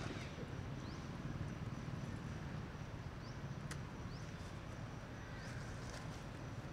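Steady low outdoor background rumble, with a few faint short high chirps and a couple of sharp clicks.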